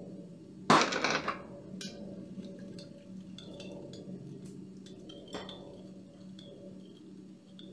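A brief loud noisy burst about a second in as water is added to the sauce, then a metal spoon stirring sauce in a glass bowl with light clinks against the glass, over a steady low hum.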